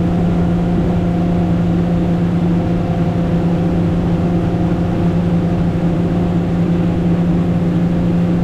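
Yamaha 300 V6 four-stroke outboard running steadily at cruise speed, about 26 mph, pushing a Pursuit 238 center console boat: an even, unchanging engine drone with a low rush underneath.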